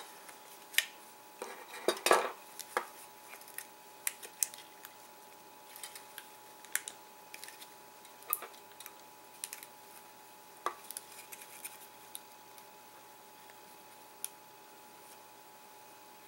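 Scattered clicks and clacks of a DJI Phantom 4 battery's hard plastic case and metal screwdrivers being handled while the case is pried apart, loudest and most frequent in the first few seconds, over a faint steady hum.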